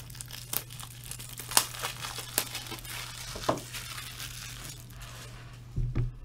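Plastic packaging crinkling and tearing as a pack of top loaders, rigid plastic card holders, is opened, with scattered sharp crackles. A low thump near the end.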